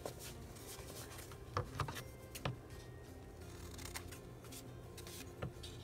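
Scissors snipping through folded paper, a few short, separate cuts with soft paper handling between them, trimming the corners of paper tags.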